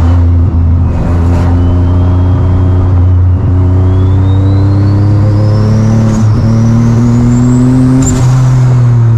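Single-turbo VQ V6 of a G35 heard from inside the cabin under way, the engine note rising and dipping briefly about every three seconds. A thin high whine climbs steadily in pitch over the engine from about three seconds in until near the end.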